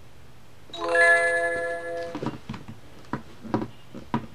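Electronic chime from a Doc McStuffins play-a-sound book's button module, set off by pressing the sun button: several bell-like tones sounding together for about a second. After that come short knocks and clicks as the board-book page is handled and turned.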